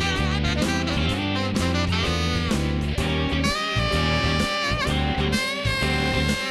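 Jazz instrumental backing track with guitar over a stepping bass line, and a held, wavering saxophone-like melody line coming in about halfway.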